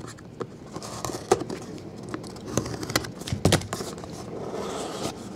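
Scissors cutting the seal tape on a cardboard trading-card box, then the box handled and opened: a string of sharp clicks and knocks, loudest about three seconds in, with soft rustling near the end.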